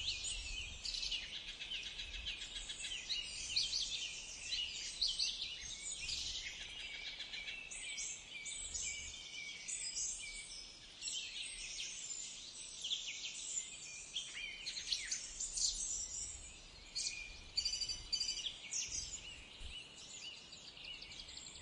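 Birds chirping and calling: many short, overlapping high-pitched calls over a faint, low outdoor background noise.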